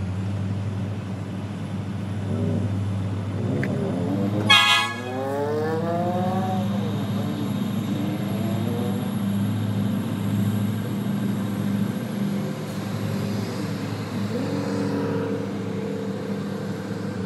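Steady low engine hum, with one short, loud horn toot about four and a half seconds in, followed by tones that fall in pitch. A quieter held tone comes near the end.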